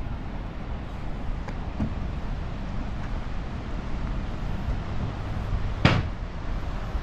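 Steady low outdoor rumble with a few faint ticks, and one sharp knock or click about six seconds in.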